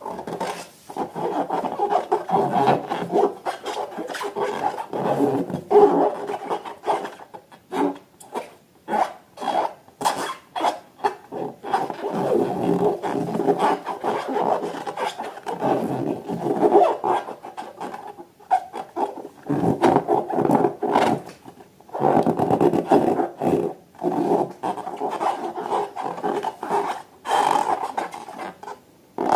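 Balloons and slime being worked by hand: continuous rubbery rubbing and squeezing with many small clicks and crackles, pausing briefly now and then.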